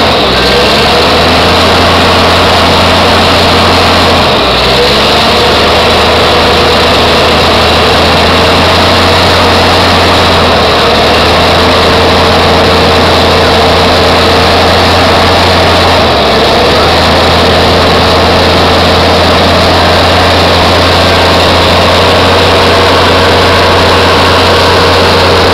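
Heavy truck's diesel engine running hard and steady, very loud, as its rear dual wheels spin in deep mud: the truck is bogged down without traction.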